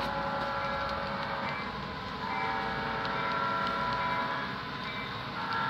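The horn of an HO scale model locomotive's sound system, sounding a series of long chorded blasts over the steady running noise of the model train. One blast is already sounding and ends about a second and a half in, a second runs from just after two seconds to past four, and a third starts near the end.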